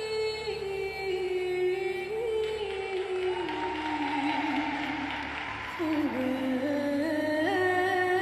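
Slow music in an ancient Egyptian style: a voice singing long held notes that step and slide in pitch, over a steady low drone.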